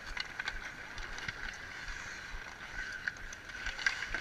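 Ice hockey skates carving and scraping on outdoor ice, with scattered sharp clicks of sticks hitting the puck and the ice, over a steady hiss.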